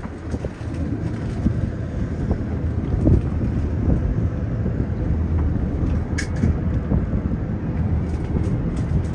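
Steady low rumble of a small boat on the water, its motor running, with wind buffeting the microphone. A brief sharp knock about six seconds in.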